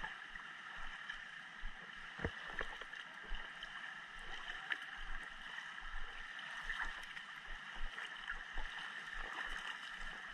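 Pool water sloshing and splashing against a camera held at the surface, with the splashes of a swimmer's front-crawl strokes coming closer, over a steady hum from the hall. Irregular low thumps and small clicks of water run through it.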